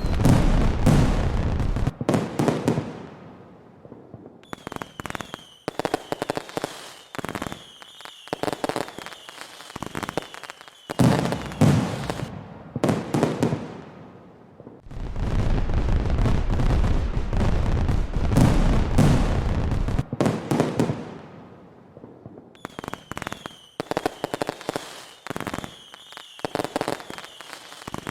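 Fireworks going off: dense crackling pops and bangs in several spells, some with a heavy low rumble of booms. Each spell cuts off abruptly.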